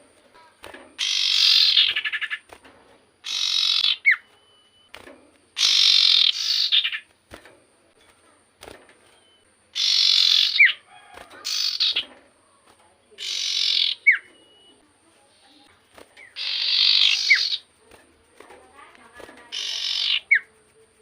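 An iora (cipoh) calling over and over in full song. There are harsh, buzzy chattering phrases every two to three seconds, several ending in a short, sharp whistled note.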